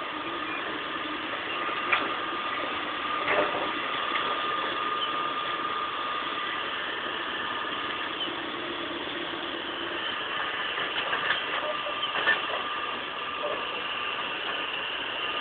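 Heavy-equipment diesel engine running steadily at idle, with a steady whine and a few short knocks or clanks, at about 2 seconds, about 3 seconds and about 12 seconds in.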